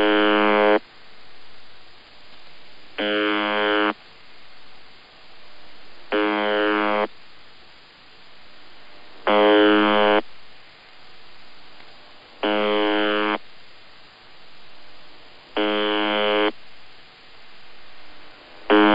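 UVB-76 ('The Buzzer'), the Russian military shortwave station, sending its normal channel marker as heard on a radio receiver: a harsh buzz just under a second long, repeating about every three seconds, seven times here. Between buzzes there is radio static that swells and fades.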